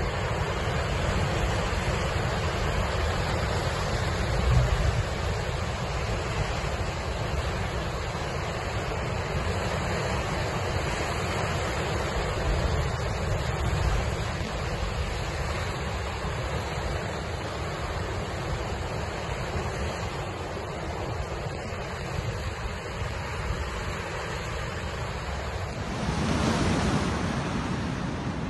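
Rough sea in a storm surge: waves surging and breaking on the coast in strong wind, a steady full rush of water with a deep rumble underneath. One louder surge comes about four and a half seconds in.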